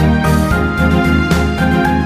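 Instrumental theme music with a steady beat of about four hits a second under held melody notes.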